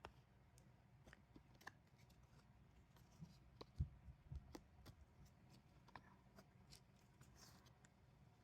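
Near silence with faint scattered clicks and taps of photocards and album pages being handled, a few slightly louder taps about halfway through.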